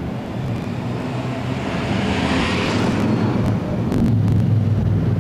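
Motor vehicle passing close by: a steady low engine rumble with tyre and air noise that swells to a peak about halfway through and fades away.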